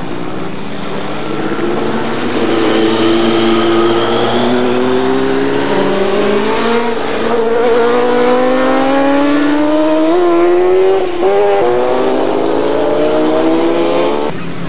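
Superbike racing motorcycle engines running at high revs, the engine note climbing slowly and steadily in pitch for about ten seconds. The note wavers briefly a couple of times near the end, then changes abruptly.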